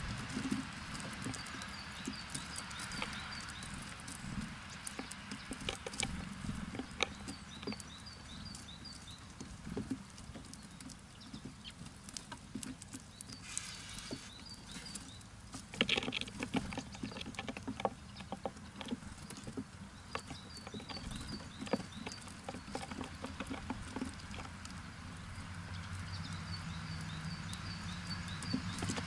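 Small birds feeding at a bird feeder: a steady patter of pecking and scrabbling clicks on seed and wood, with short runs of quick high chirps repeating every few seconds. A low hum grows louder near the end.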